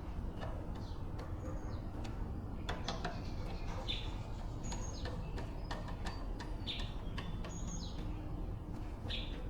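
Small birds chirping in short, high calls scattered throughout, over a steady low background hum, with a few light clicks.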